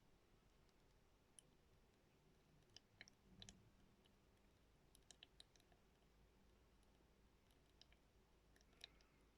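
Near silence broken by faint, sharp plastic clicks from a Miele Softtronic toy washing machine, a few at a time in small clusters, the loudest near the end.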